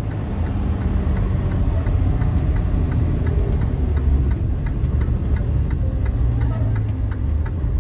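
Steady low engine and road rumble inside a moving truck's cab, with a regular ticking about twice a second running over it.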